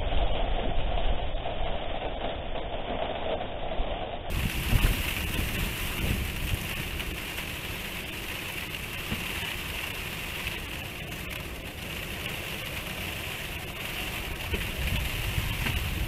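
Typhoon wind buffeting the microphone over falling rain: a steady rumbling, hissing noise. About four seconds in, the sound cuts abruptly to a brighter, hissier noise.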